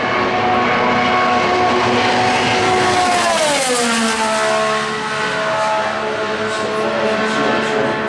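IndyCar's twin-turbo V6 running at speed and passing by: a steady high engine note that drops in pitch about three to four seconds in as the car goes past, then holds lower as it pulls away.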